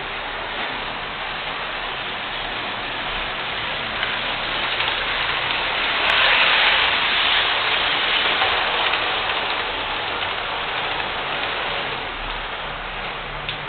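Model steam locomotive and its train running on the layout's track, a steady whirring rattle of the electric motor and wheels on the rails that grows loudest as the train passes close by about six seconds in, then fades as it moves away.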